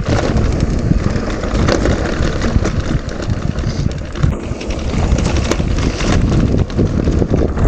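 Mountain bike riding a rough trail: wind buffeting the camera microphone, with tyre rumble and frequent rattling clicks from the bike over bumps.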